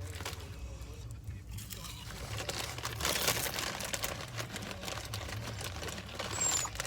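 Crinkling and crunching of a bag of Lay's potato chips being handled and eaten: a run of faint rustles and crackles, busiest about three seconds in.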